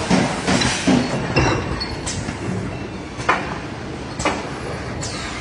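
Bottle-filling and carton-packaging machinery running, with irregular sharp clinks and clacks about every half second to a second, some followed by a short hiss.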